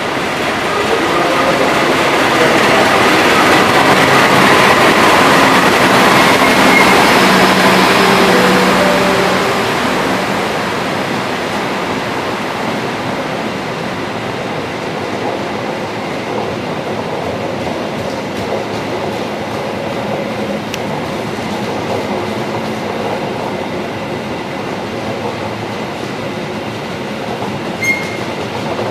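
Diesel-electric locomotive of the Argo Bromo Anggrek passenger train passing close by, its engine loudest over the first several seconds. The stainless-steel coaches follow, their wheels rolling steadily on the rails, with brief high wheel squeals near the end.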